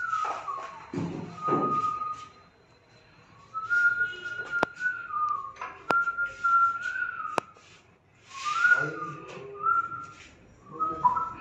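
A person whistling a slow tune in held notes with small slides between them, pausing between phrases. There are a few low knocks about a second in and three sharp clicks midway.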